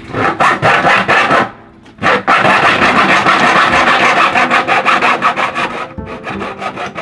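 Hand hacksaw cutting through a rain-gutter downspout in quick back-and-forth strokes. A burst of sawing, a short pause about a second and a half in, then a longer steady run of strokes that eases off near the end.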